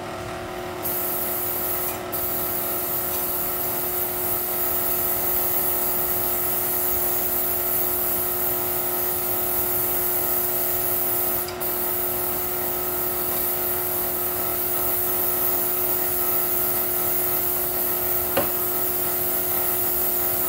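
Aerosol baking-release spray hissing almost without a break as a bundt pan is coated, with two short pauses, over the steady hum of a stand mixer beating batter.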